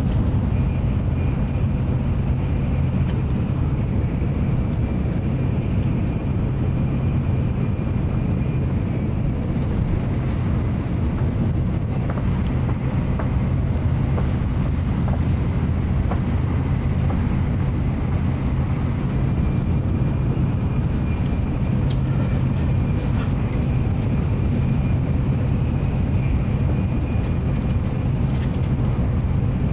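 Interior cabin noise of a Nozomi Shinkansen bullet train running at speed: a steady low rumble and hum, with a faint high whine that fades out early and comes back later.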